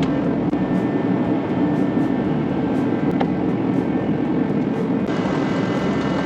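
Steady, even mechanical running noise, like a motor or machine at constant speed, with no rise or fall.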